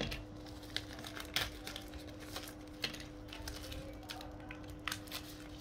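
Paper leaflet and plastic packaging rustling and crinkling as they are handled and unfolded, with scattered light clicks, over a steady low hum.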